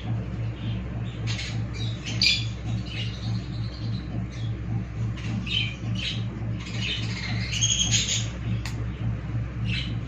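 Parrots squawking: several short, high-pitched calls in clusters, about a second in, past the middle and near the end, over a steady low hum.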